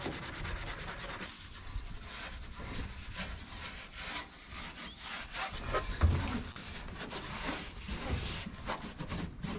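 Steel-wool soap pad and towel scrubbing and wiping a rusty steel dashboard in quick, uneven back-and-forth strokes, with a dull bump a little past the middle.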